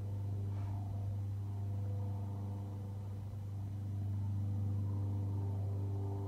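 Sphynx kitten purring close to the microphone: a steady low rumble.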